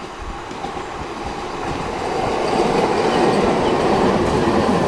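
Siemens Avanto tram-train running past on the rails, its wheel-on-rail running noise swelling from about two seconds in as it comes close and passes directly below.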